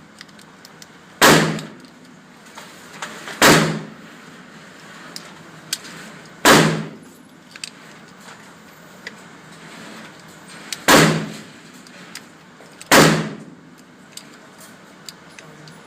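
Five gunshots at uneven spacing, each loud crack followed by a short fading echo, with faint clicks between them.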